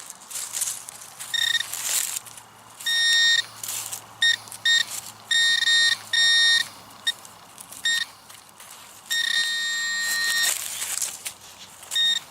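Metal detector's target tone: one steady high beep sounding on and off, in short blips and longer holds, the longest over a second, marking a buried metal target. Some brief scraping noise near the start and toward the end.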